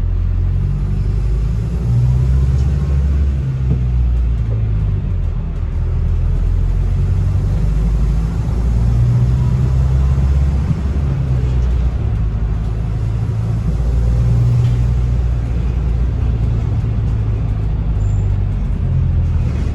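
Bus running in service, heard from on board: a steady low rumble of engine and road that rises and falls gently.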